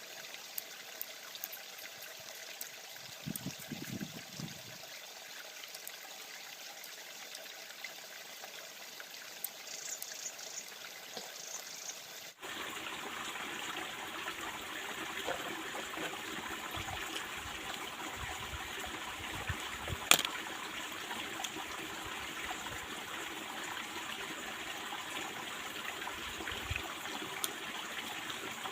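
Small stream babbling and trickling steadily over rocks. About twelve seconds in the sound changes abruptly and becomes louder, and a single sharp click stands out later on.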